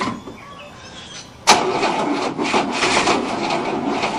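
1967 Cadillac's 429 V8 being cranked by its starter motor, kicking in abruptly about a second and a half in and turning the engine over slowly and rhythmically, about four beats a second, without it catching. The slow cranking is the sign of a weak battery, which the owners blame for the no-start.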